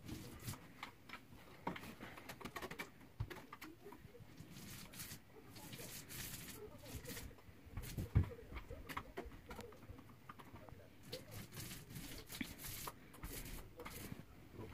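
Paint roller rolling thinned drywall mud onto a wall, an irregular sticky crackling with scattered clicks, and a single louder thump about eight seconds in.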